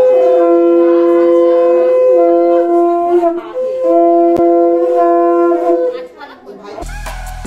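Conch shells (shankha) blown in long, steady blasts at two different pitches that overlap, one breaking off and starting again as the other holds; the blowing stops about six seconds in. Background music with a beat starts near the end.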